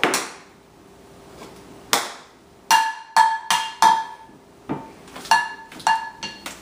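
Metal kitchenware being banged: about ten irregular sharp strikes, most of the later ones leaving a short metallic ring.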